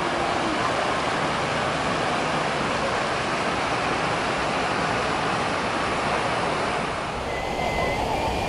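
Many fountain jets spraying up and splashing down into a lake: a steady, even rush of falling water. About seven seconds in it drops away to quieter outdoor background.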